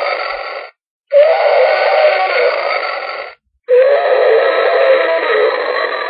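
Dinosaur roar sound effect played over and over: the end of one roar, then two more full roars of about two and a half seconds each. Each starts at full strength with a wavering, growling pitch and fades before cutting off abruptly, with short silent gaps between, and it has no deep bass.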